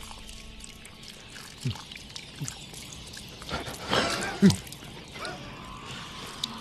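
Thin stream of water poured from a small brass pot, trickling and dripping into a man's open mouth, with a few short falling sounds, the loudest about four and a half seconds in.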